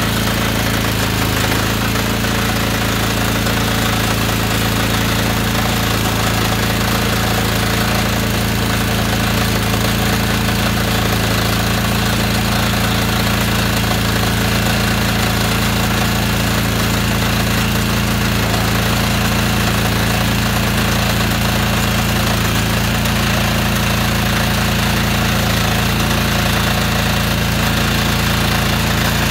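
Honda gas engine of a pressure washer running steadily at one constant speed. It drives the pump of a hydro jetter that is blasting a drain line.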